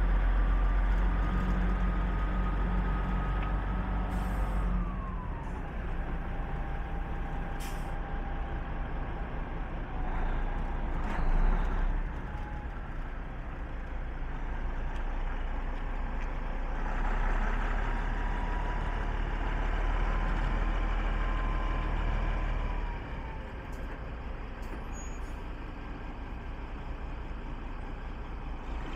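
Kenworth T600 heavy truck's diesel engine rumbling as the truck drives slowly, pulling harder twice with a high whine that rises and then drops away as it lets off. A brief burst of air hiss about eleven seconds in.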